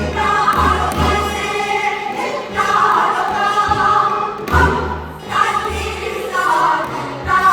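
Live Korean folk song: sung notes held at length over music, with a deep low drum beat recurring underneath.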